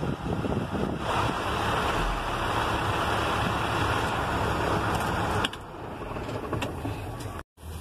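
Air rushing out of an International truck's dashboard A/C vent close to the microphone, with the air conditioning blowing cold after a freon recharge and a low engine hum underneath. The rush of air drops away about five and a half seconds in.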